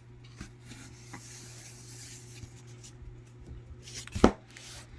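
Hands handling and rubbing firework packaging, with light rustles and taps, then one sharp knock a little over four seconds in. A steady low hum runs underneath.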